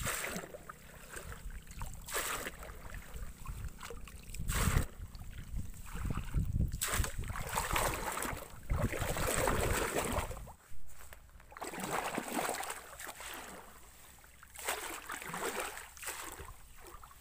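Shallow muddy water sloshing and splashing in irregular swells as someone wades through it and sweeps a hand net.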